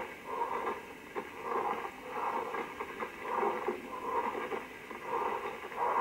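Pleural friction rub heard through a stethoscope: a rough, grating rub that swells in even pulses a little over half a second apart, with short crackles through it. It is the sign of inflamed pleural layers, roughened by fibrin deposits, rubbing together.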